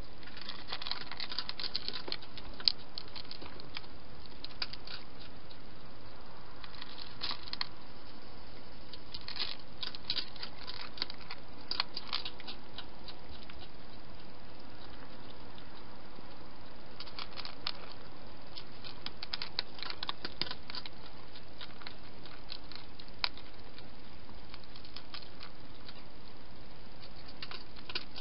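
Wild hedgehog with its head in a dish, making bouts of fast, small, wet clicks and smacks with its mouth as it feeds, with pauses of a few seconds between bouts. A steady hiss runs underneath.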